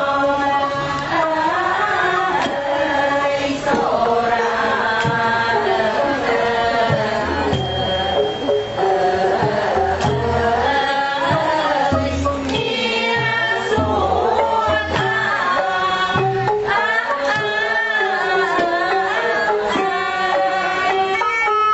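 Cambodian classical dance music: a wavering, ornamented melody line over low drum strokes and light, regular percussive clicks.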